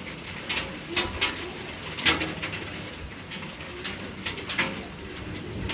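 Pea-sized hailstones striking hard surfaces: irregular sharp clicks and taps, a few a second, over a low, steady hiss of the storm.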